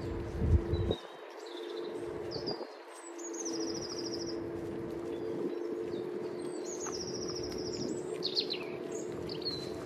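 Songbirds singing: two trills of fast repeated high notes, about three and seven seconds in, with short chirps between. Under them runs the steady hum of the e-scooter's electric motor, and there is a brief low bump near the start.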